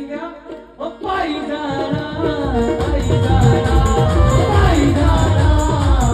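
Live jagran devotional music with singing: the full band comes in about a second in, and a heavy, steady bass beat joins about two and a half seconds in.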